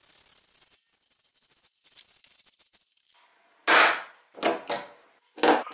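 Paintbrush faintly brushing paint across a metal door panel, then four loud knocks in the last two seconds, each dying away quickly.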